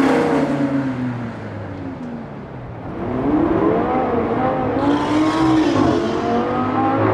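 Lamborghini Gallardo V10 drive-by. The engine note falls away as the car pulls off, then rises again from about three seconds in as it accelerates back, with a short drop in pitch from a gear change before climbing once more.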